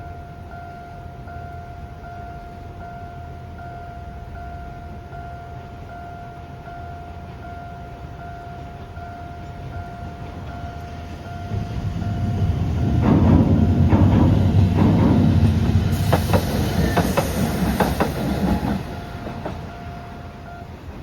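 Fukui Railway level-crossing warning bell ringing at a slow, even pace, a repeated electronic ding, while a train passes through the crossing from about twelve seconds in, rumbling, with wheels clacking over rail joints near the end of the pass. The bell stops just before the end.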